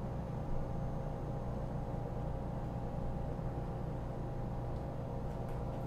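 Electric convection oven's fan running: a steady low hum with faint steady whine tones above it.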